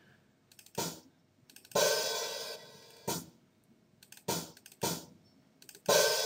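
Sampled hi-hat from a virtual drum kit, triggered one hit at a time as notes are entered in a MIDI editor. There are four short closed hi-hat ticks and two open hi-hat hits, about two seconds in and near the end, that ring on for most of a second.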